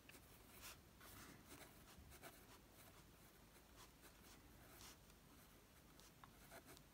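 Faint scratching of a pen writing on lined paper, in short irregular strokes.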